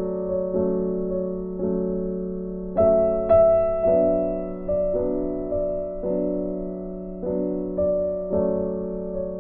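Background piano music: chords struck about once a second, each dying away before the next.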